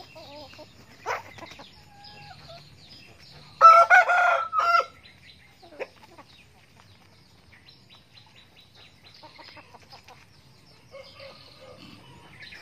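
A rooster crows once, about three and a half seconds in, a loud call lasting a little over a second. Hens cluck softly around it and small birds chirp faintly.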